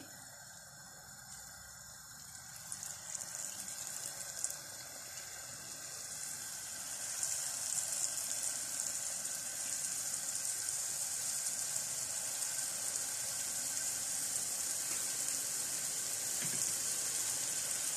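Jilapi (jalebi) batter frying in hot oil: a steady sizzling hiss that grows louder over the first several seconds as more coils are piped into the pan, then holds steady.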